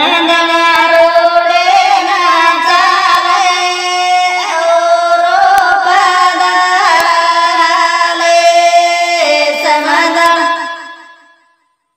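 A woman singing a Banjara (Lamani) wedding song, a vaya geet, in one long phrase of gliding, ornamented notes over a steady low held note. The phrase fades out near the end.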